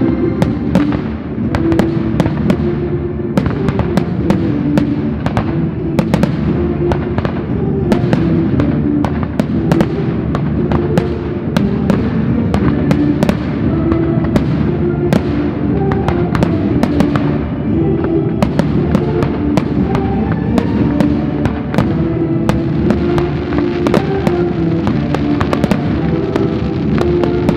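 Aerial fireworks shells going off in rapid, overlapping bangs and crackles, over loud music played with the display.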